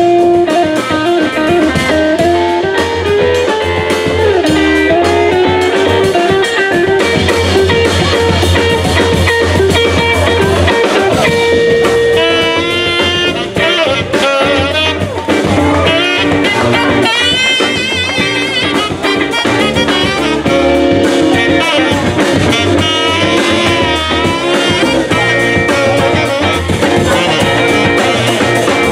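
Live small-band music in a blues and jazz style: an electric guitar playing over drums and upright bass, with wavering, bending melody notes in the middle of the passage.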